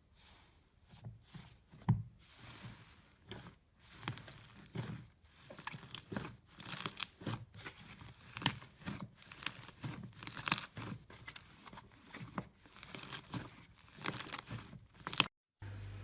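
Slime being pulled and squeezed by hand: a string of irregular crackling, tearing pops. It cuts off suddenly near the end.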